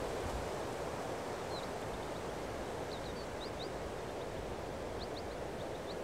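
Steady outdoor rushing noise with small birds giving short, high chirps in little clusters, about a second and a half in, around three seconds and again around five seconds.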